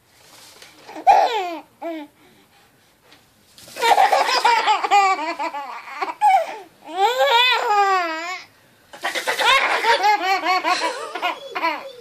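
A baby laughing hard in runs of high giggles: a short squeal about a second in, then long laughter from about four seconds, a brief break near nine seconds, and more laughter after it.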